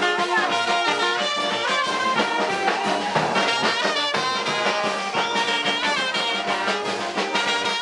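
Live Nicaraguan chichero brass band playing upbeat dance music: trumpet and trombone play the melody in held and stepping notes over a steady drum beat.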